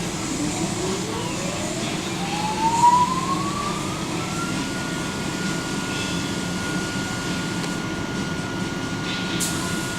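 A motor's whine spins up, rising smoothly in pitch over about four seconds and then holding one steady tone, over a constant rush of air. There is a brief knock near the end.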